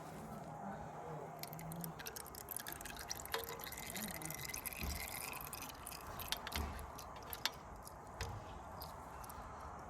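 Old engine oil dripping and trickling from the drain hole of a 2025 Yamaha R6 Race's engine, with many small splashing drips. The drips are thickest through the middle and thin out toward the end.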